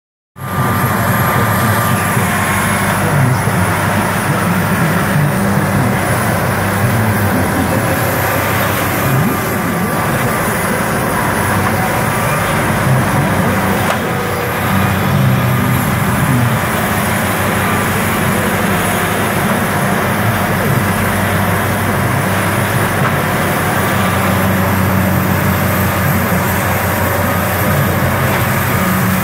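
Tub grinder running under load: its heavy diesel engine drones steadily while the rotating tub grinds wood into mulch, with a wheel loader's engine working alongside.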